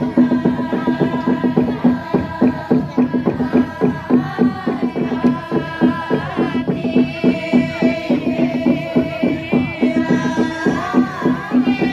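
Group of Torajan pa'katia dancers, women's voices, singing a traditional chant in unison with long held, gliding notes, over a quick steady percussive beat.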